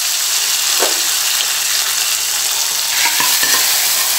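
Hot oil tempering of dried red chillies and curry leaves sizzling steadily as it is poured from a small pan onto a chickpea curry, with a few light clicks of the pan and spoon about three seconds in.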